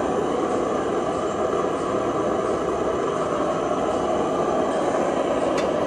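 Vegetable-oil cook stove burner running at full intensity with its air turned up, the flame making a steady rushing noise.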